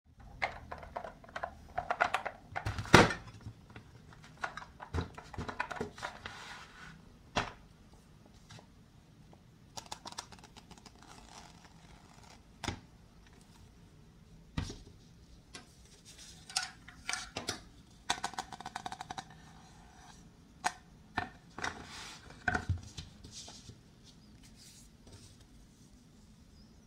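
Toy fruit and vegetable pieces, a wooden crate, a plastic woven basket and a wooden cutting board being handled on a tabletop: scattered clacks and knocks of plastic and wood set down and touching, with stretches of light scraping and rustling. The loudest knock comes about three seconds in.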